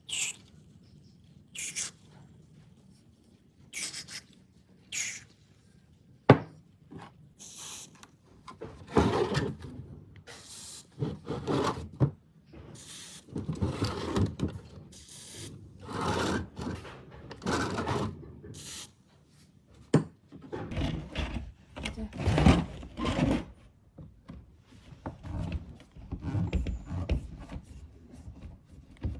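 Hand work on the parts of an old rusty table fan. Scattered clicks at first, then repeated bursts of rasping and rubbing a second or so long, with duller knocks near the end.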